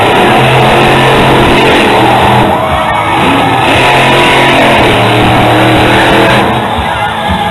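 Monster truck's supercharged big-block engine running hard at full throttle, very loud, its pitch easing off and coming back up a couple of times as the driver works the throttle.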